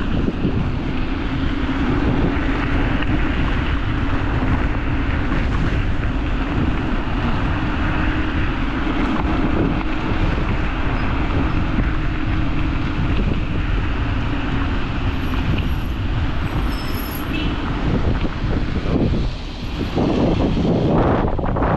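Strong wind buffeting the microphone over a steady rumble of heavy road traffic, with a low hum that fades out about two-thirds of the way through.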